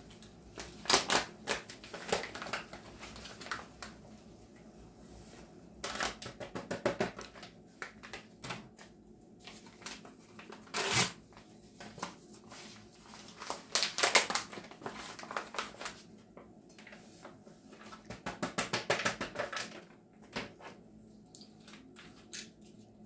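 Bursts of rapid clicking, rattling and rustling, several seconds apart: packets and a jar of turmeric powder being handled and tipped out into a dye pot.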